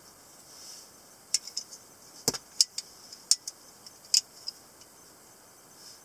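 Metal-handled butterfly knife (balisong) flipped open by hand: a quick run of sharp metallic clicks and clacks as the handles swing on their pivots and knock together. The run starts about a second in and lasts about three seconds.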